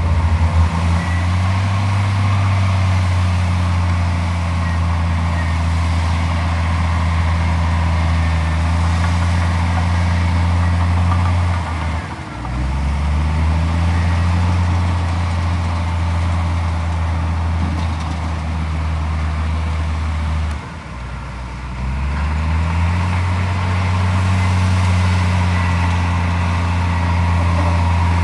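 Heavy diesel engine running steadily at working revs. Twice its pitch and loudness sag briefly, then climb back up as the engine recovers under load.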